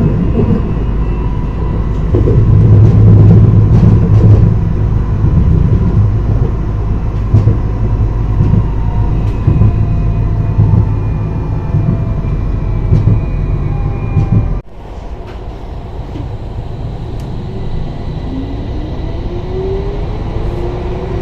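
Electric tram running on its rails, heard from inside: a steady rumble of wheels on track with faint gliding electric motor tones. The level drops abruptly about two-thirds of the way through, and a rising whine comes in near the end.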